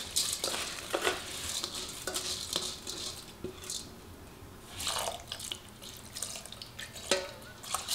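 Wet rice grains tipped and scraped by hand out of a stainless steel strainer bowl into an enamelled cast-iron pot: uneven rustling and small clinks of metal against the pot, with some water trickling in.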